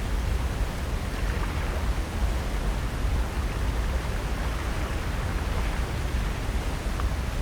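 Steady, even wash of ocean surf along the shore, with a low rumble underneath.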